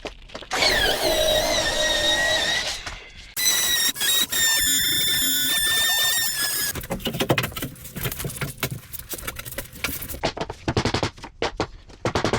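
Power saw cutting a vinyl floor plank: a pitched squeal that wavers for a few seconds, then a steady high whine, then a rapid chattering as the blade works through the plank.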